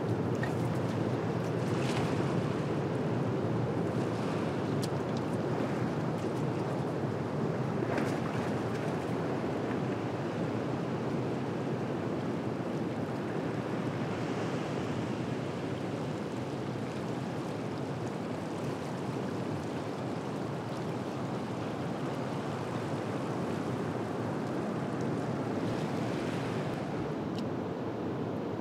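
Steady rush of ocean surf breaking around rocks, with a few brief higher washes of spray.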